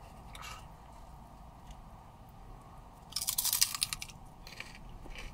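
Crunching bite into a thick-cut potato chip, loud and crackly for about a second midway, with fainter chewing clicks around it.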